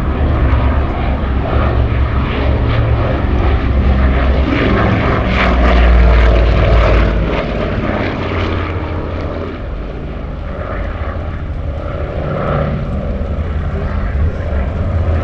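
Avro Anson 19's twin Armstrong Siddeley Cheetah radial engines running in flight. The engine sound swells to its loudest about six seconds in, fades, then builds again near the end as the aircraft passes and comes round.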